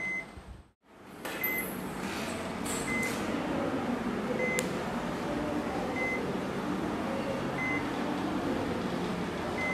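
Patient monitor beeping: short, high, single-pitch beeps repeating steadily about every second and a half, over a steady low room hum.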